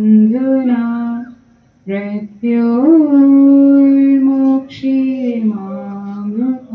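A single voice chanting a prayer in long held notes that slide from one pitch to the next, with a short pause about a second and a half in.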